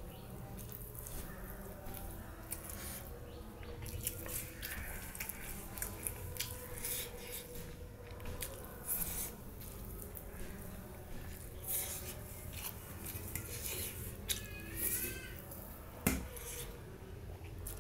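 Fingers scraping and picking food off a stainless steel plate, mixed with close-up chewing and small mouth sounds, in a string of irregular clicks and crackles. Near the end a single sharp clink against the plate is the loudest sound.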